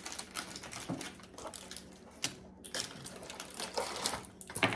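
Plastic candy wrappers crinkling and crackling as small individually wrapped candies are handled, in scattered short clicks, with the sharpest click near the end.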